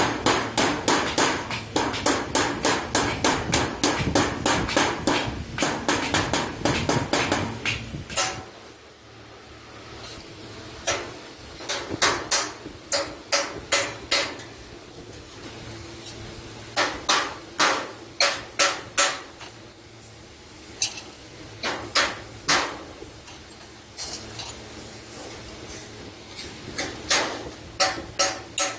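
A hammer striking iron sheet: a fast run of ringing blows, about five a second, for roughly eight seconds, then short groups of blows with pauses between.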